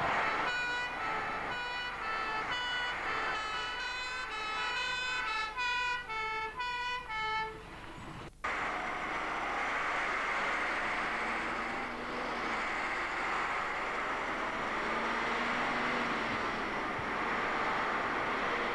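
Fire engine two-tone horns sounding in a quick run of changing notes, which cut off abruptly about eight seconds in. Then a steady rushing engine and road noise of a fire appliance on the move.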